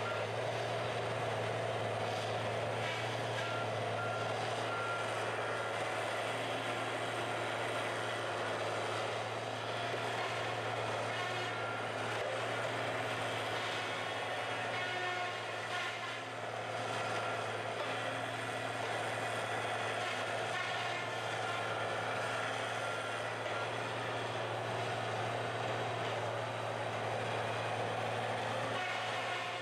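Tigercat 718E wheeled feller buncher's diesel engine running steadily as the machine drives and turns.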